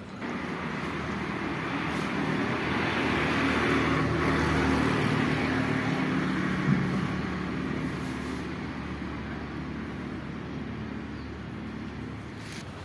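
A motor vehicle passing: engine and road noise swell to a peak about halfway through and then slowly fade.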